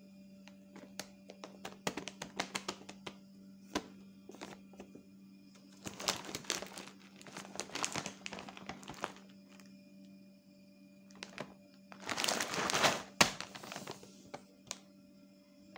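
Plastic cat-food bag crinkling and crackling as it is handled and turned over, in scattered crackles and two longer bursts, the louder one about twelve seconds in. Steady tones of soft background music run underneath.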